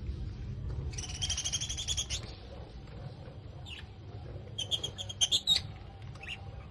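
Small caged birds chirping: a rapid trill about a second in, then a few short chirps and a quick, louder burst of calls past the middle, over a low steady rumble.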